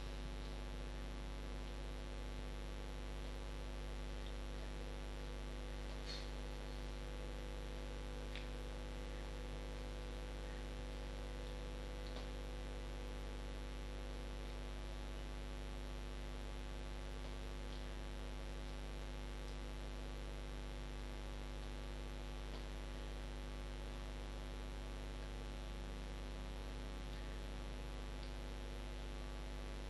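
Steady electrical hum with many overtones, unchanging throughout, with a few faint ticks.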